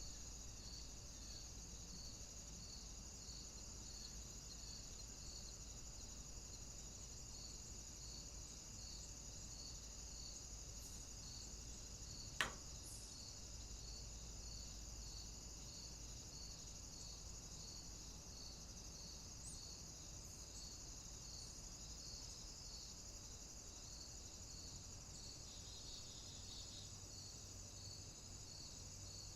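Faint nature recording of insects: a steady high trill with a chirp repeating about three times every two seconds. A single sharp click about twelve seconds in.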